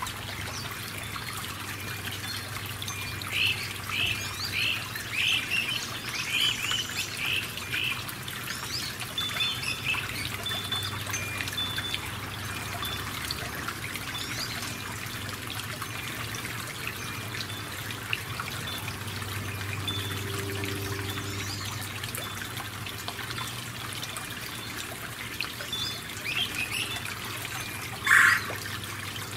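Steady rain falling, an even hiss. Over it a bird gives a quick series of about eight short chirps a few seconds in, more faint chirps near the end, and one brief louder call just before the end.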